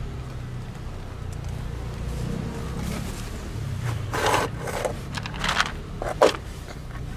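Plastic cat food bowl holding dry kibble pushed and slid by hand across a plywood floor: a handful of short scrapes and rattles from about four seconds in, the sharpest near the end, over a steady low background rumble.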